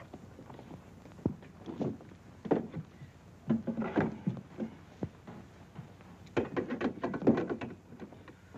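Irregular light thunks and knocks of books and objects being shifted on a wooden mantelpiece shelf, with a busier run of small knocks and scuffs near the end.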